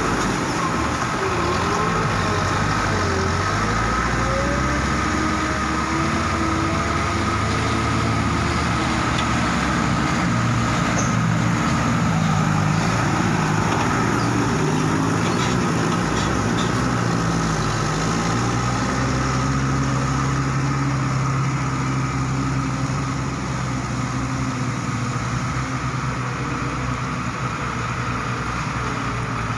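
Several loaded diesel trucks, a Mitsubishi among them, driving slowly along a muddy dirt road, their engines running with pitch rising and falling as they rev through the ruts.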